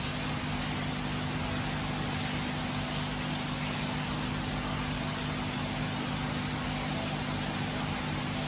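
Steady mechanical hum with an even hiss, unchanging throughout.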